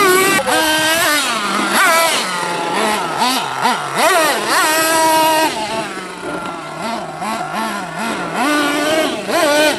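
Radio-controlled model monster trucks' small engines revving up and down with the throttle, the pitch rising and falling many times over and dropping lower and quieter for a few seconds past the middle.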